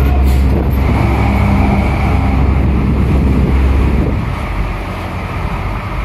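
Deep, steady diesel rumble of a cargo truck driving off a ferry's bow ramp, mixed with wind buffeting the microphone; the deepest rumble eases about four seconds in.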